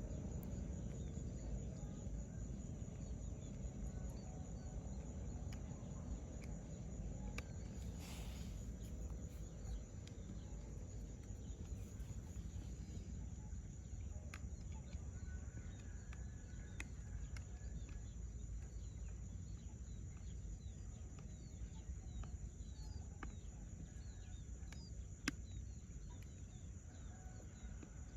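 Open-air lake ambience: a steady low rumble with birds chirping on and off throughout and a constant high-pitched insect drone. A single sharp click sounds near the end.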